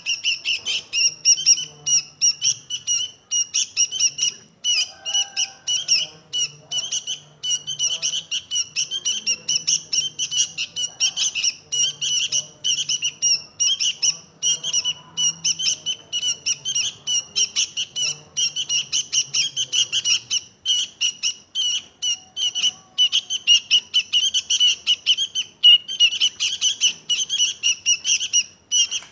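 Sooty-headed bulbul (kutilang) calling in a rapid, unbroken run of short, sharp chirps, many to the second.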